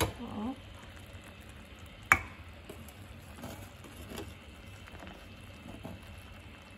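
Metal slotted spoon scraping and stirring through thick hot jam in a stainless steel pot while the foam is skimmed off. There are sharp metallic clinks of spoon against pot, one at the start and a louder one about two seconds in.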